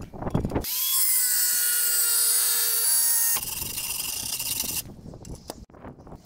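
Electric power tool motor spinning up and running at a steady high whine for nearly three seconds, then cutting off abruptly; a fainter whine follows for about another second and a half.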